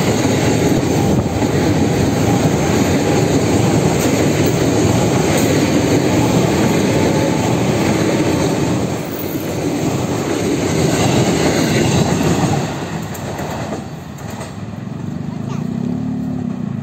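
KRL Commuter Line electric multiple-unit train passing close by, its wheels loud on the rails, the sound falling away about thirteen seconds in as the last car goes by.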